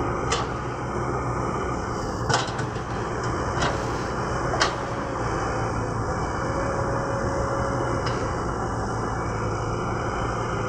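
Cat 120B excavator's diesel engine running steadily under work, with four sharp knocks in the first five seconds.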